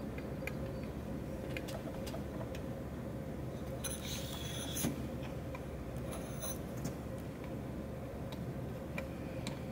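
Small clicks and scrapes of a hand working the vacuum tube in its socket inside a GA-8000 condenser microphone, with two short, high scrapes near the middle, over a steady hum.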